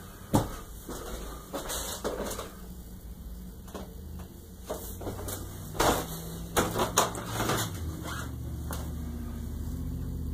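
Scattered light clicks, knocks and rustles of a handheld camera being moved about, sharpest about half a second in and again around six to seven seconds. A low steady hum comes in during the second half.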